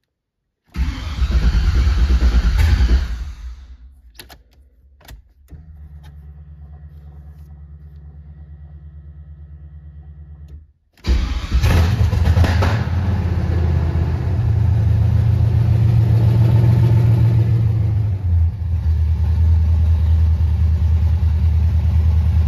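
1990 Chevrolet Camaro's engine on a test start: it catches and runs for about two seconds, then drops away, followed by a quieter steady hum for several seconds. About halfway through it starts again and settles into a steady idle around 1100 rpm.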